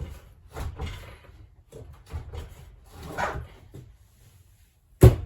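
Irregular bumps, knocks and scraping as an RV refrigerator is worked loose and pulled from its cabinet, with one loud sharp knock about five seconds in.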